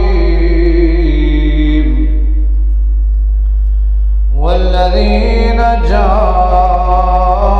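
A man's voice chanting a religious recitation in long, held melodic notes. It falls away about two seconds in and comes back a couple of seconds later with a rising slide. A steady low hum runs underneath.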